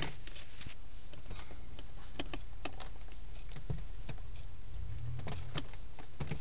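Scattered raindrops tapping on the car's roof and windshield at an irregular pace, heard from inside the cabin over a steady low hum.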